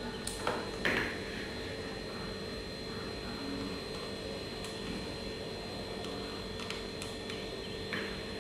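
Steady low hum with a few light clicks and taps of hand work on a popsicle-stick model, as small pieces and a hot glue gun are handled. The sharpest taps come about a second in and near the end.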